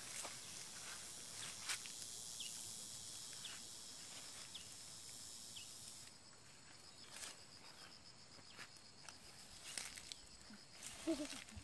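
Steady high insect chorus in tropical forest, with scattered short high chirps and a few soft footsteps brushing through grass and leaves. The hiss thins about halfway through, leaving a fainter pulsing insect drone.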